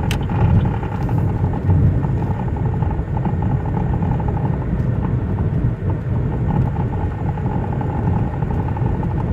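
Cabin noise of a 2005 Chevy Cobalt driving at speed: steady road and tyre rumble with a hum that carries a fast flutter. This is the speed-dependent noise from the driver's side that the owner cannot place, whether wheel, steering or drivetrain.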